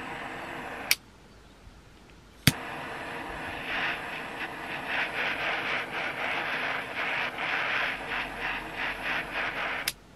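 Butane jet torch lighter burning with a steady hiss, shut off with a sharp click about a second in; it is relit with a piezo click about 2.5 s in and burns again, the hiss growing louder and wavering as the flame plays on wood, until another click cuts it off near the end.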